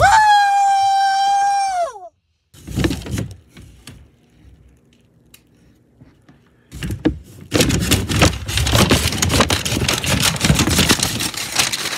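A high held note for about two seconds that slides down as it stops. After a quiet stretch, loud crackling and scraping from something rubbing over the phone's microphone while it is covered.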